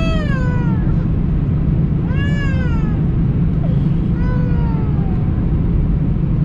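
Steady low hum of an Airbus A319's cabin noise, with three drawn-out cries over it, about two seconds apart, each rising and then falling in pitch.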